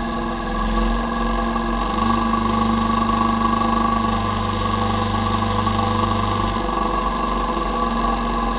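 ATV (quad) engine running steadily as the quad rides along a dirt trail.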